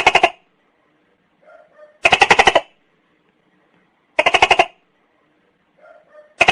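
Tokay gecko calling: loud, rapid pulsed calls about two seconds apart, three in full and a fourth starting at the very end, with faint softer sounds between them.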